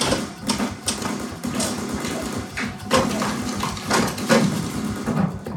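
War-film soundtrack playing through home-theater speakers and picked up in the room: a string of sharp, irregularly spaced cracks and knocks over a low, steady score drone.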